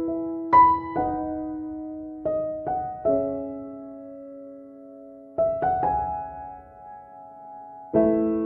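Gentle solo piano background music: short runs of notes, each group left to ring and fade into a held chord, with a new chord struck near the end.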